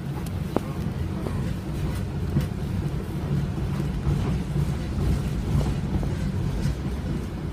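Tram running along its line, heard from inside the passenger cabin: a steady low rumble with scattered short clicks and rattles.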